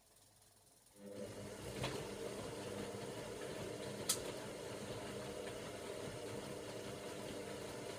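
Hoover Logic washing machine starting up about a second in and then running with a steady hum, with two sharp clicks, the louder one about four seconds in.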